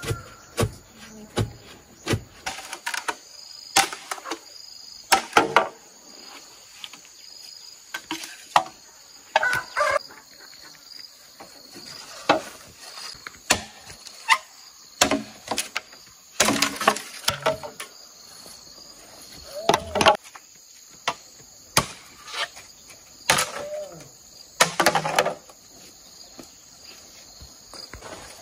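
Irregular knocks and thuds, a few seconds apart, over a steady, pulsing insect chorus.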